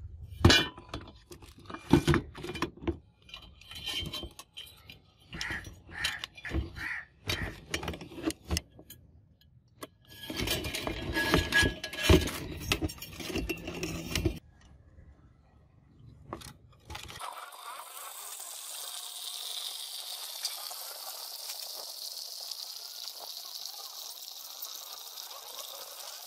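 Rusty steel angle-iron bars being handled, knocking and clinking against each other and the plastic tub, for roughly the first half. From a little past halfway on, a steady stream of water pouring into the plastic tub.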